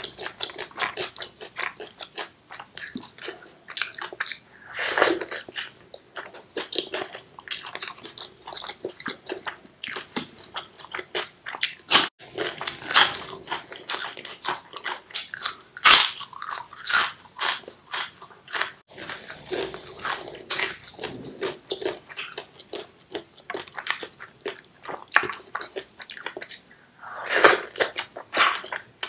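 Close-miked eating: chewing and crunching of fried moong papad with mouthfuls of pulao and chana chole, with many sharp, irregular crunches and wet mouth clicks.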